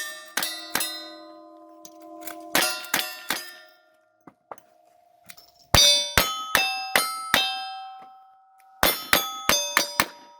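Rapid gunfire at steel targets: sharp shots in quick strings, each hit answered by the steel plate clanging and ringing on. Two shots open, then three, then two strings of five about a third of a second apart, with short pauses between strings.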